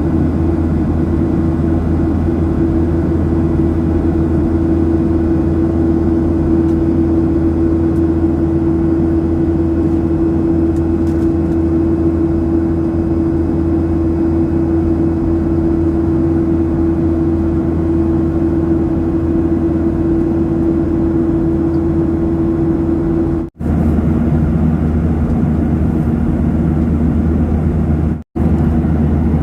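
Steady jet engine and airflow noise inside an airliner cabin in flight: a deep rumble with a steady hum. The noise cuts out briefly twice near the end, and after the first break the hum is a little lower in pitch.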